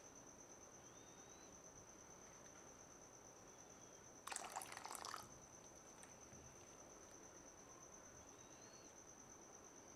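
Near silence with a faint steady high-pitched whine. About four seconds in comes a one-second burst of liquid splashing and stirring in a saucepan of simmering tamarind chutney as cornflour slurry goes in.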